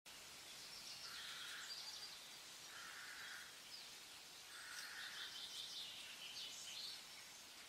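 Faint birds calling: a short call repeated three times, about two seconds apart, with higher chirps and twitters around it.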